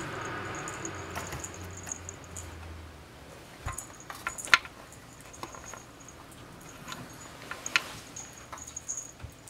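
Cat playing with a dangled toy: a soft rustle at first, then scattered light taps and clicks, the sharpest about four and a half seconds in, over a faint, broken high tinkle.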